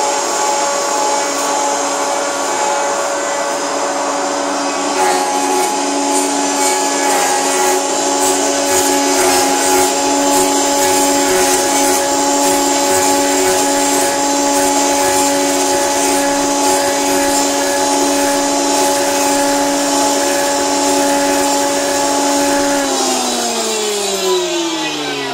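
MFX9512-4A four-spindle copy-milling machine for wooden handles running, with a steady whine from its spindles and, from about five seconds in, a fine rapid rattle of the cutters milling the wooden blanks. Near the end the whine falls in pitch as the machine spins down.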